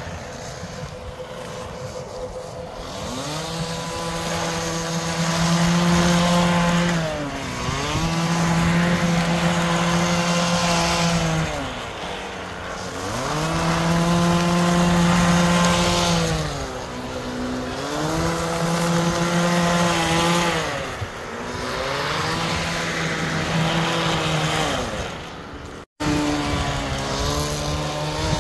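Husqvarna two-stroke trimmer power head driving a power broom attachment, revved up to full speed and eased back to idle about five times, each burst lasting three to four seconds. Under the engine the spinning brush throws gravel and dirt out of the lawn with a gritty hiss.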